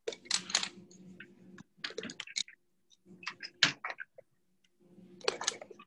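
Short, quick scratchy strokes of colouring and drawing on paper, in four or five clusters. Heard through a video call, the sound drops out to dead silence between the clusters.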